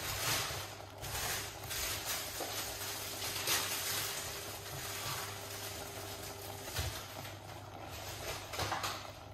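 Stir-fry vegetables sizzling and crackling in a stainless steel pan on the hob, a steady hiss with irregular pops, over a steady low hum.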